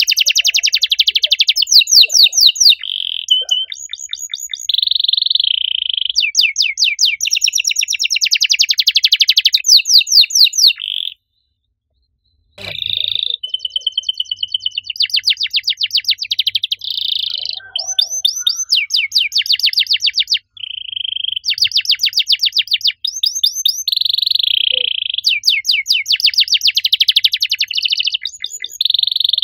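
Domestic canary singing a loud, continuous song of rapid trills alternating with held whistled notes. The song stops for about a second and a half near the middle and resumes with a sharp click.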